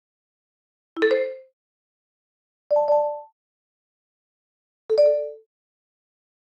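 Three short smartphone text-message notification chimes, each about half a second long and about two seconds apart. Each is a different little figure of a few notes; the first is a quick rising run.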